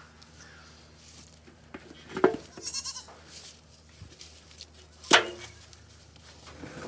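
Goats bleating, with calls about two and three seconds in. A sharp knock about five seconds in is the loudest sound.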